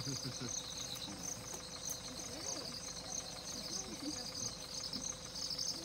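Insects chirping in a steady, high-pitched chorus of fast pulsing trills.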